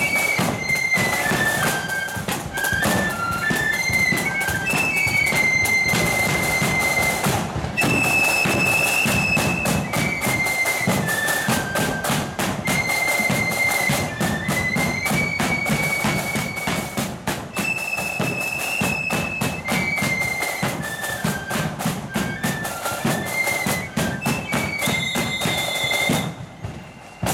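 Marching flute band playing a tune on flutes in unison, high and shrill, with drums beating a steady marching rhythm underneath. The music stops shortly before the end.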